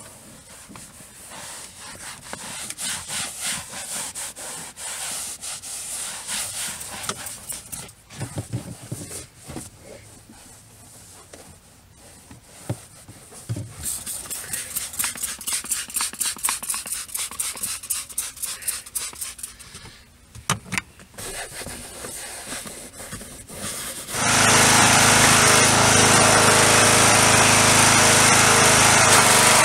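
A towel wiping over leather car seats in quick back-and-forth rubbing strokes. Near the end, a pressure washer cuts in, loud and steady, its motor running with the hiss of the spray.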